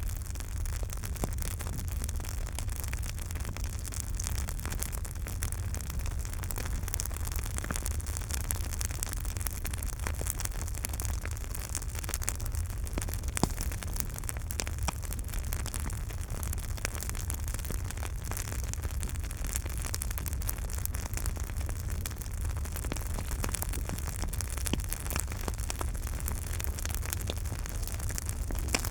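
Campfire burning, a steady low rumble under frequent crackles and pops of wood, one louder pop about halfway through.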